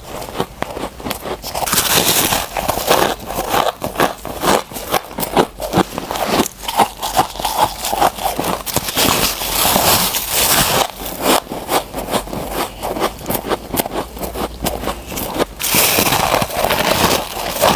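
Close-miked crunching of fresh, powdery freezer frost being bitten and chewed from a big chunk: dense crackling and scraping crunches with no pause.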